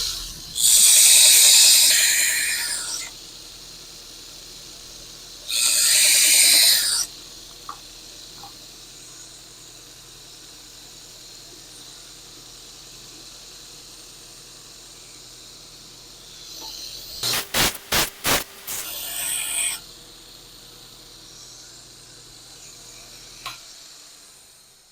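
Belt sander running with a steady hum while a steel knife blank held in a jig is pushed against the belt, grinding the edge bevel: three loud passes of one to two and a half seconds each, the last broken into several quick touches. The motor's hum stops near the end.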